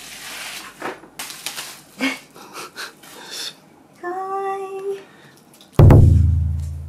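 Cardboard cake box and plastic cake packaging rustling and clicking as the cake is slid out of the box. About four seconds in a short steady tone sounds for about a second. Near the end a sudden loud, low tone rings out and dies away over about a second and a half.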